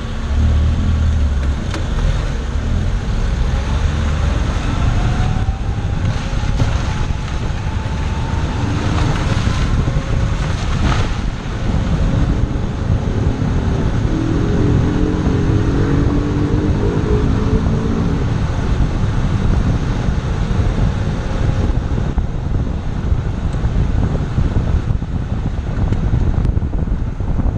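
Chevrolet Zafira on the move: steady engine and road noise with wind on the microphone, and a faint rising engine tone about six seconds in.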